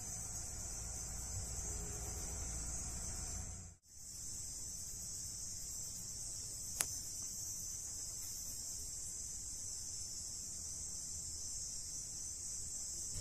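Steady high-pitched chorus of crickets trilling continuously. It cuts out briefly about four seconds in, and there is one sharp click about halfway through.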